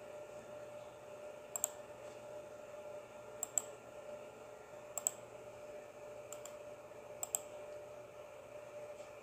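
Computer mouse clicking: five quick double clicks spaced one to two seconds apart, over a steady faint hum.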